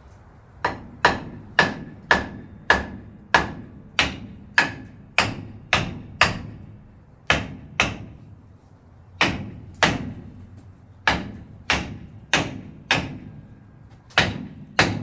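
Steady hammer blows on a seized front brake drum, struck to free it, about two a second, some with a short metallic ring. There is a brief pause a little past the middle.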